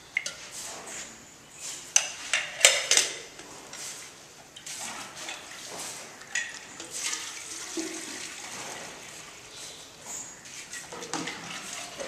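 Milk being ladled with an aluminium mug and poured into aluminium kettles: a running, splashing pour, with sharp clinks and knocks of the metal vessels about two to three seconds in.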